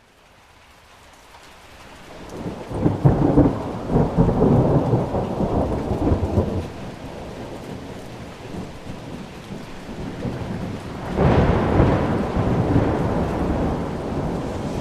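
Thunderstorm: steady rain that fades in from silence at the start, with two long rolls of thunder, the first starting about two seconds in and the louder low rumbling lasting several seconds, the second about eleven seconds in.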